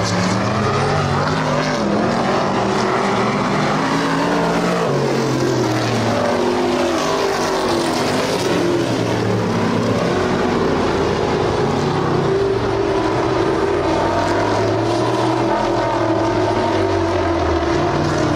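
Several stock car engines running together, each pitch rising and falling as the cars lap the track under racing throttle.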